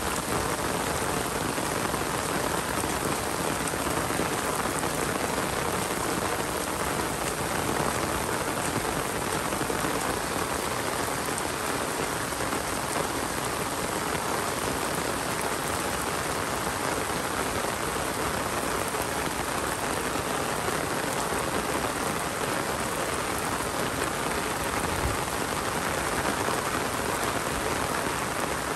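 Steady rain falling: an even, unbroken hiss of many drops striking surfaces.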